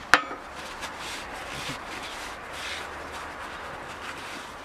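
A sharp knock as a brake-cleaner spray can is set down on the steel bench, then a paper towel rubbing steadily around the inside of the bandwheel's hub, wiping out brake cleaner and old grease from the bearing bore.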